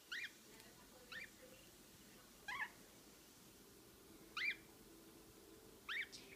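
Lineolated parakeet chirping: five short calls that sweep upward, spaced irregularly a second or more apart.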